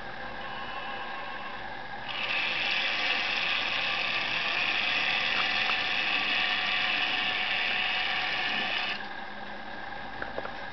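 Märklin F1 model locomotive running along the track, its small electric motor and gears whirring and rattling. It starts about two seconds in and stops abruptly about nine seconds in, with a couple of light clicks near the end.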